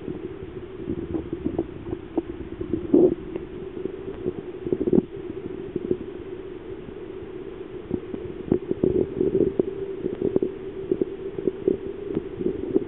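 Underwater sound in a fish tank: a steady mechanical hum with irregular knocks and bumps, louder clusters of them about three and five seconds in and again in the second half.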